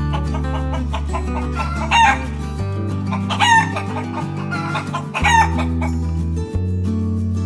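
Chickens calling, three loud calls about two, three and a half and five seconds in, over guitar background music.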